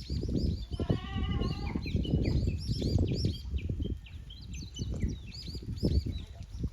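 Wind gusting across the microphone, with one wavering goat bleat about a second in and small birds chirping repeatedly throughout.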